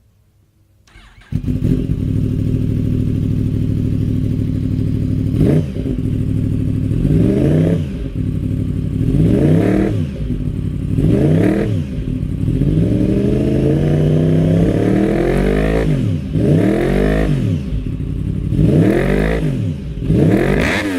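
Sportbike engine starts up about a second in and idles, then is blipped over and over with the throttle in free revs, the pitch rising and falling roughly every two seconds.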